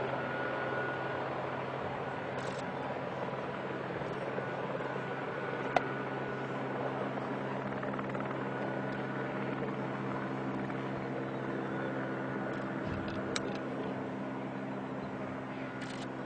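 Aircraft flying over, a steady droning hum that slowly fades, with a sharp click about six seconds in.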